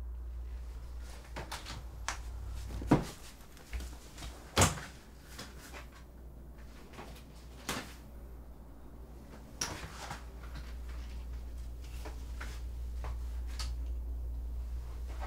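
Scattered knocks and clatters of things being handled and moved around a desk and shelf, the two loudest about three and four and a half seconds in, with lighter ones later, over a steady low hum.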